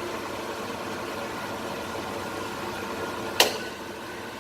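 Carbon filter clicking into place in a rangehood: one sharp plastic click about three and a half seconds in, over a steady hum with several held tones.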